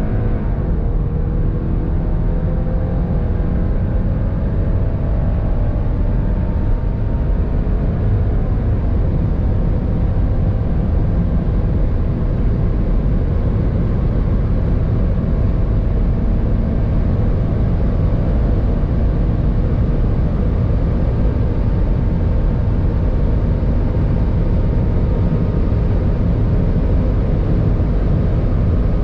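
The 2022 CUPRA Ateca's turbocharged 2.0-litre four-cylinder under full throttle, heard from inside the cabin, accelerating hard at high speed through third, fourth and fifth gear. There is an upshift just after the start. After that a steady loud roar of wind and road noise dominates, with the engine note rising slowly under it.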